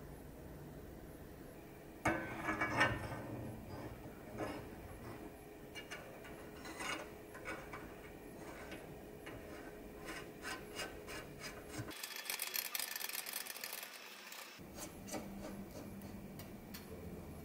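Bicycle headset parts being turned and threaded by hand on a steel frame: metal rubbing and scraping with small clicks. A louder rattling cluster comes about two seconds in, and a brighter hissy scrape runs for a couple of seconds about twelve seconds in.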